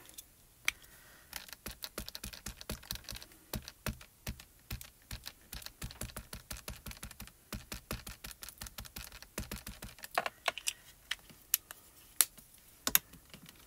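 Quick, light tapping of a small plastic mini ink cube being dabbed over a clear photopolymer stamp to ink it, several taps a second. The taps thin out to a few sharper, separate clicks near the end.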